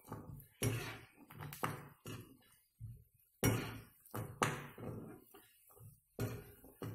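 A spatula scraping and knocking against a nonstick kadai as cashews are stirred in hot ghee, a dozen or so short strokes at an uneven pace of roughly one or two a second.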